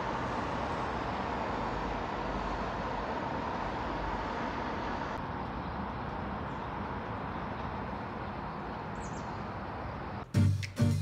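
Steady outdoor city ambience: the distant hum of road traffic heard from high up, with a brief bird chirp near the end. Music comes in just before the end.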